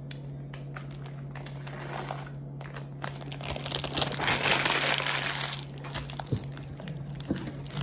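Chip bag crinkling and rustling, with a louder stretch of rustling about four seconds in, over a steady low hum.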